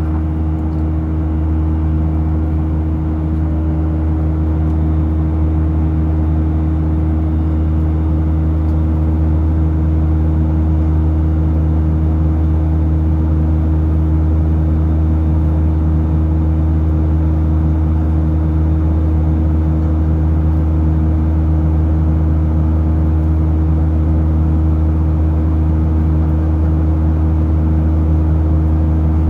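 Steady low drone inside the cabin of an Airbus A319 airliner in flight: jet engine and airflow noise with a constant deep hum.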